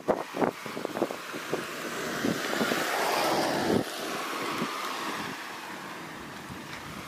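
An SUV driving past on a paved road: its engine and tyre noise grow louder to a peak about three and a half seconds in, then fade as it moves away. There are a few sharp knocks in the first couple of seconds.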